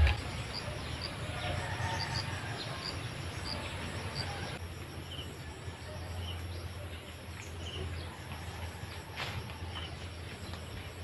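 Rural outdoor ambience: a steady high insect drone with short high chirps repeating, about two a second at first and then sparser and a little lower, over a steady low rumble.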